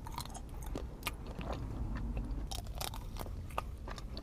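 Close-miked biting and chewing of a hazelnut pastry: a series of short, crisp crunches and mouth clicks.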